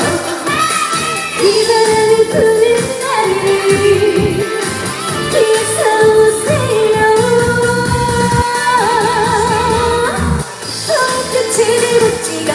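Live trot song: a woman singing over a backing track, holding long notes, one with a wavering vibrato about three-quarters of the way through.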